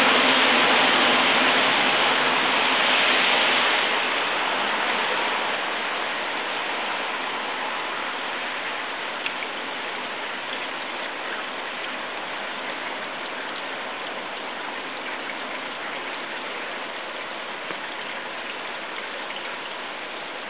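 Falling water pattering onto wet surfaces with a steady hiss, louder for the first four seconds and then slowly fading.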